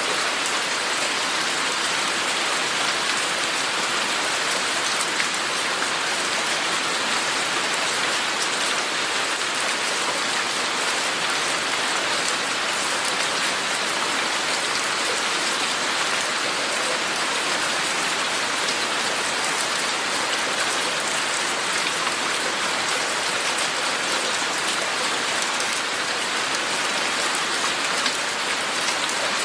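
Steady rain falling, an even hiss of many drops with now and then a slightly louder drop.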